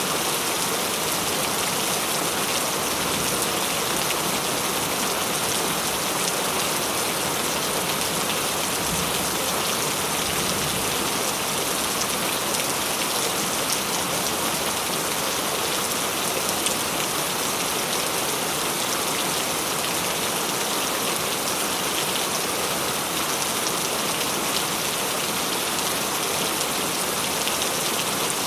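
Steady rain falling, a dense even hiss of drops hitting surfaces with fine individual drop taps throughout.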